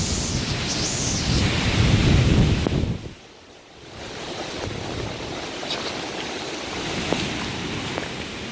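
Hurricane-force wind blowing hard, with gusts buffeting the microphone. The wind drops off abruptly about three seconds in and builds back up a second later.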